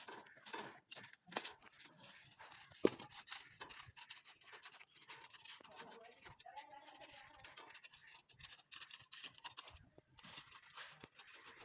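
Insect chirping steadily in a high, even pulse about four times a second, over scattered clicks and knocks, with one sharper knock about three seconds in.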